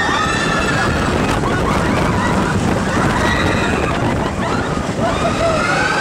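Expedition Everest roller coaster train running fast along its track, with wind rushing over the microphone and a steady rumble. Riders scream at the start, briefly in the middle, and again near the end.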